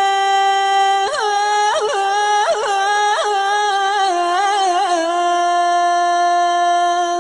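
A woman's voice sings one long, unaccompanied held note in Tunisian folk style, with quick ornamental turns in pitch between about one and three seconds in. She then settles onto a slightly lower held note.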